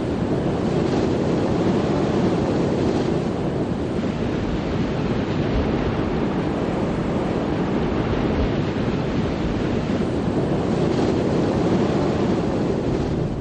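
Wind and waves: a steady rushing noise.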